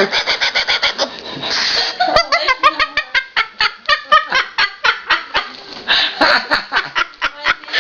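Laughter: quick staccato runs of short 'ha' pulses, about five to eight a second, in several bursts with brief breaks between them.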